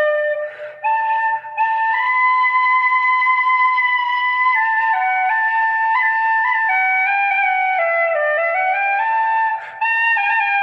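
Irish flute playing a slow solo melody, one note at a time, with a long held note in the middle and brief pauses for breath near the start and near the end.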